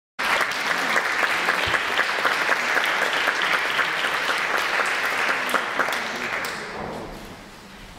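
Audience applauding, a dense patter of many hands that dies away about six to seven seconds in.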